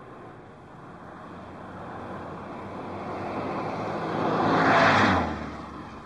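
A car approaching and passing by: engine and tyre noise grow steadily louder, peak as it goes past about five seconds in, and fall away sharply as the engine note drops in pitch.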